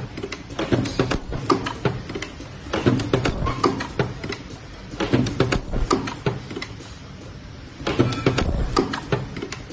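Semi-automatic KN95 mask ear-loop spot welding machine running, clattering in repeated bursts of rapid clicks and knocks every two to three seconds, with a short lull about two-thirds of the way in.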